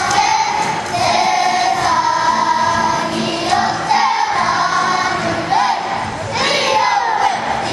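Children's kapa haka group singing together in unison, many young voices in a steady chorus with sliding notes.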